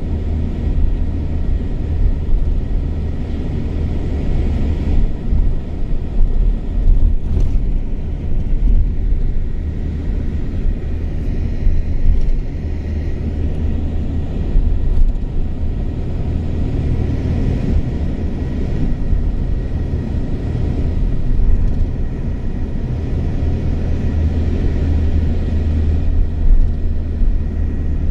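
Steady low rumble of a moving vehicle, heard from inside as it drives along a road.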